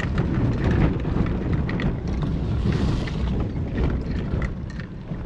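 Suzuki Jimny 4x4 off-roading: a steady low engine and drivetrain rumble with frequent short knocks and rattles, and wind buffeting the microphone.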